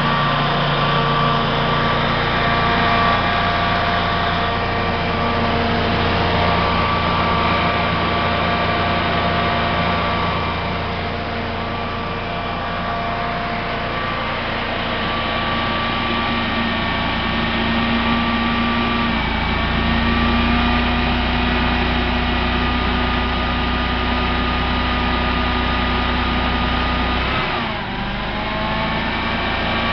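Generac 13 kW standby generator's engine running steadily at its governed speed. Near the end its note sags briefly and climbs back.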